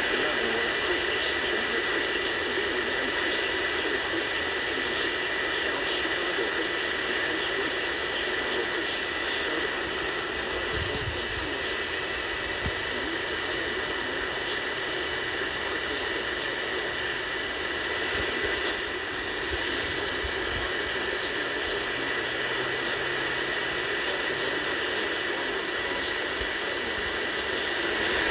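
Radio static from a poorly received broadcast: a steady, dense hiss and crackle with a thin, constant high tone running through it.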